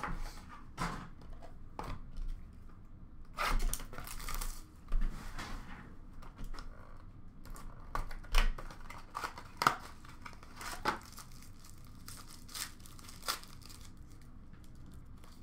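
Foil trading-card packs of Upper Deck SP Game Used hockey being torn open and crinkled by hand, in a series of short rips and rustles. The loudest tearing comes about three and a half seconds in and again about eight seconds in, and it thins out after about thirteen seconds.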